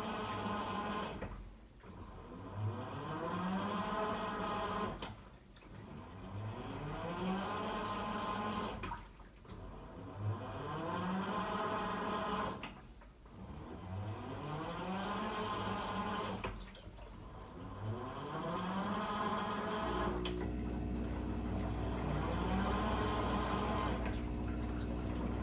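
Teco W1068XS washing machine agitating: its motor winds up with a rising whine in repeated strokes about every four seconds, with short pauses between them and water sloshing. A steady low hum joins near the end.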